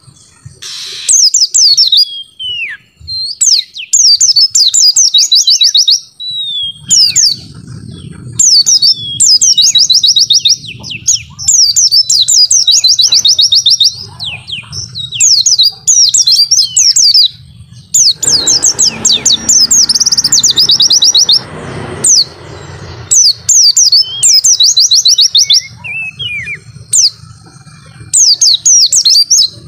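White-eye (pleci) singing: loud, clear song phrases of rapid trilled notes, each about a second long, repeated over and over with short pauses, with a few downward-sliding notes between them.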